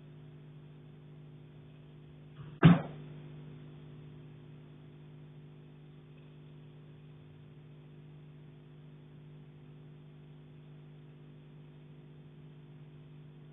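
One loud knock on a pipe in the attic, about two and a half seconds in, dying away over about a second. A steady low hum runs underneath.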